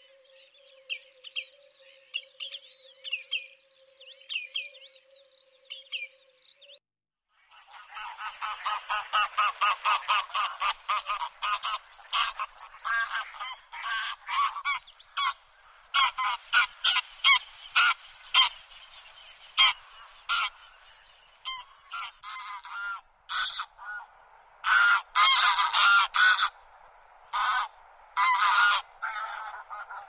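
Thin, high bird calls for the first few seconds, then from about seven seconds in common shelducks calling: rapid, loud honking cackles in quick runs, several birds at once, with short breaks.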